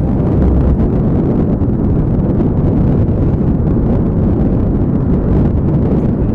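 Strong wind buffeting the microphone: a loud, steady low rumble with no clear tone.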